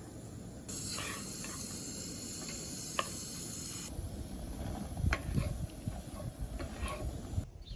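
Outdoor ambience: wind buffeting the microphone with an unsteady low rumble. A steady high hiss cuts in suddenly just under a second in and cuts out again about three seconds later, with a few light clicks.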